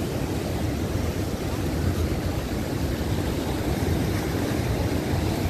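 Rough ocean surf washing and breaking around the pier, a steady rushing noise that is heaviest in the low range, with wind on the microphone.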